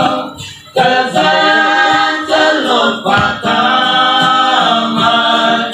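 A group of young men singing a Christian song in the Wancho language together, in long held lines. A short pause comes just under a second in before the next line begins.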